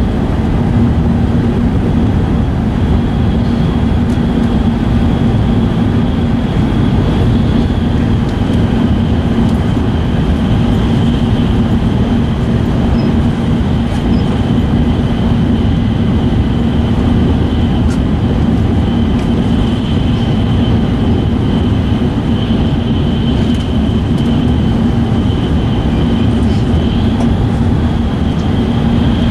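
E5 series Shinkansen running at speed, heard from inside the passenger car: a steady, loud rumble with a constant low hum and a faint high whine over it.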